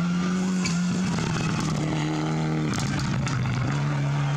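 Rally car engine running hard as the car passes on a gravel stage. Its pitch drops in steps a few times, with a few sharp clicks and pops over it.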